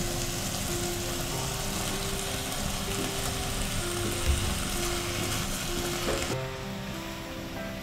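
Sliced beef and onion sizzling in an enamelled cast-iron pot as the onion is tipped in and stirred with a wooden spatula. The sizzle drops away sharply about six seconds in, over soft background music.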